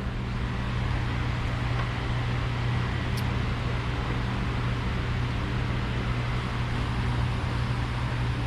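Steady low machine hum with an even hiss, unchanging throughout, as from a fan or similar motor running; one faint tick about three seconds in.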